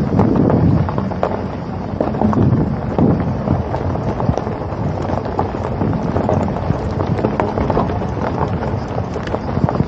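Wind buffeting a moving camera's microphone: a steady low rumble broken by irregular crackles, mixed with the travel noise of the vehicle it rides on.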